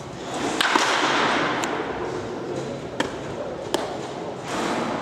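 Baseballs smacking into leather gloves during catcher practice: five sharp single cracks, irregularly spaced, over a steady rushing background.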